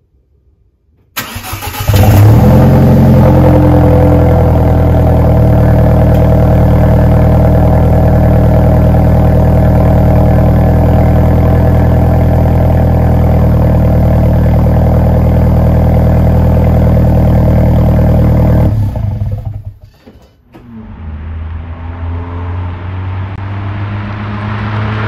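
Alfa Romeo 4C's turbocharged four-cylinder engine on its stock exhaust cold-starting: a brief crank about a second in, then it catches and runs at a steady, loud fast idle. The sound cuts off sharply near the end, and engine noise then rises again.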